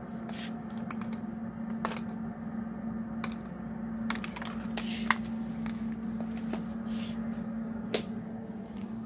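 Phone microphone handling noise: irregular clicks and rustles as fingers and hair brush against the handheld phone, over a steady low hum.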